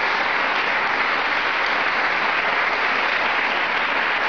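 Studio audience applauding, a steady, even clapping that holds at one level throughout.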